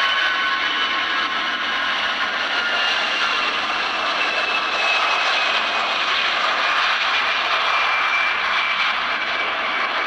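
Airplane engines running at high power during takeoff: a steady, even rush of engine noise with thin whining tones that slowly fall in pitch.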